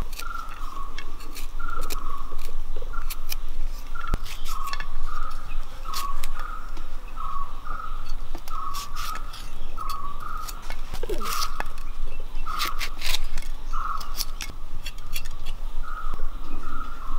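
A knife slicing garlic and green chillies held in the hand, the blade cutting through in sharp clicks. Behind it a bird calls a short note over and over, roughly once a second.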